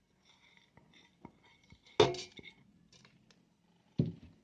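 A glass of fenugreek seeds emptied into a cooking pot: a faint scattered rattle of seeds, then a sharp clink about two seconds in that rings briefly, and a second knock near the end.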